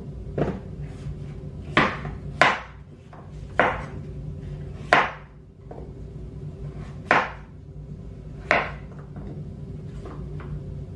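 Kitchen knife chopping hard raw squash into cubes on a plastic cutting board: about seven sharp knocks at uneven intervals, with a faint steady hum behind.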